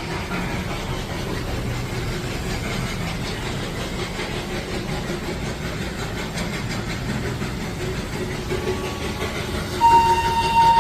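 Darjeeling Himalayan Railway toy train running past with a steady rumble. Near the end its horn starts again with one long, steady blast.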